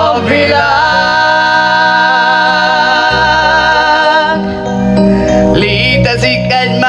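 A man and a woman singing a musical-theatre duet over an instrumental accompaniment, holding one long note with vibrato together for a few seconds before moving into shorter phrases.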